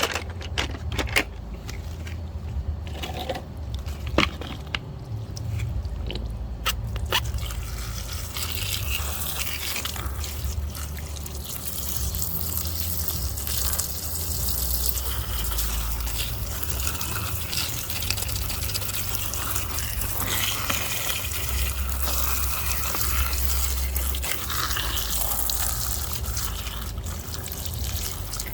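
A few sharp clicks and knocks, then from about seven seconds in, running water spraying steadily, as when muddy toys are washed under it.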